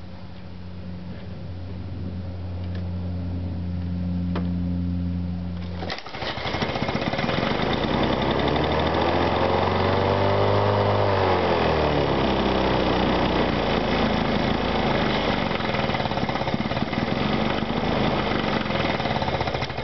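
1986 Lawn-Boy Commercial 8461 mower's two-stroke engine running. A low, steady hum at first; about six seconds in it suddenly gets much louder, its speed rising and falling back over a few seconds, then it runs steadily at speed.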